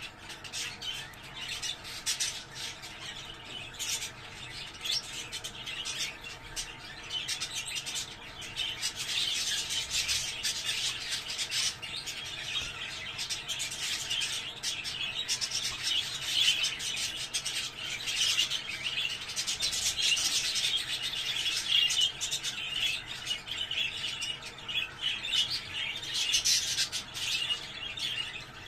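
Budgerigars chattering and warbling without a break, a dense stream of quick chirps and squawks: the kind of budgie chatter played to bring budgies into breeding condition.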